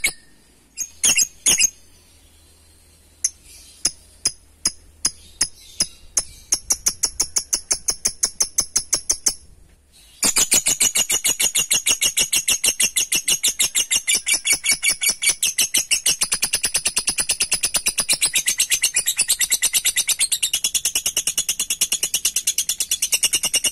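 Blue masked lovebird calling in rapid strings of sharp, high 'kek' chirps: a few scattered notes, then a series that speeds up, and after a short break about ten seconds in, a long unbroken fast chatter. This is the lovebird's long 'ngekek' call, the excited, aggressive song that keepers try to provoke.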